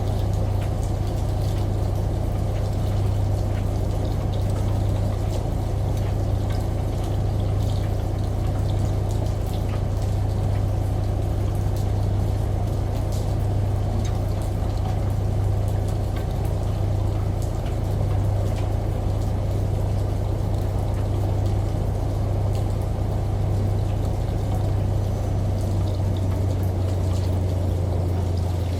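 Washing machine running: a steady low motor hum under water sloshing and pouring inside the drum.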